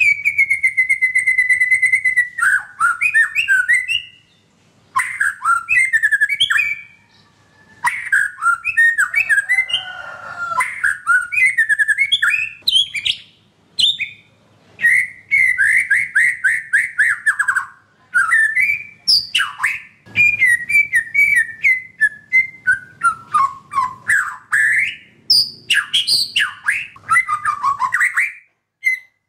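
White-rumped shama singing loudly in long, varied phrases of clear whistles and fast trills, with brief pauses about four and seven seconds in.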